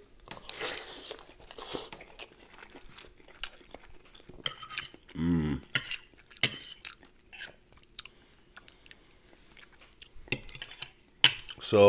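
Cutlery clinking and scraping on a plate, with chewing of a cheesy omelette. There is one short vocal sound about five seconds in.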